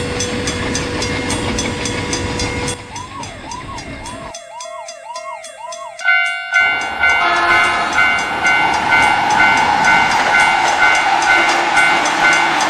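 Train and railroad-crossing sound effects: a train running with rapid clicking for the first few seconds, then a warbling alarm chirping about twice a second, then from about six seconds in a crossing bell ringing in steady pulses over the rumble of a passing train.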